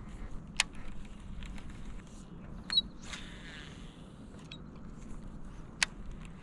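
Three sharp clicks or knocks, about half a second in, near the middle and near the end, with a brief rustle between the last two, over a low steady rumble. These are the sounds of gear being handled on a fishing boat.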